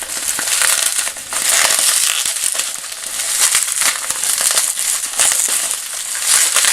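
Plastic bubble wrap being cut open and pulled off by hand: continuous crinkling with many small crackles.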